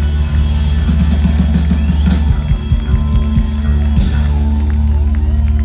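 Live rock band holding a sustained final chord, with drum rolls and a cymbal crash about four seconds in, as the song ends.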